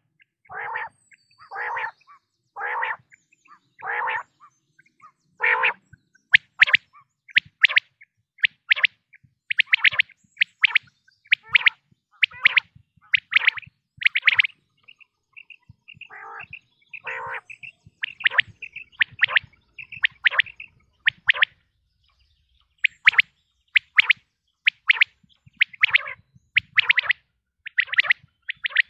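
Common quail calling: about five fuller, lower calls roughly a second apart, then long runs of short, sharp high notes at about two a second. Two more low calls break in about midway.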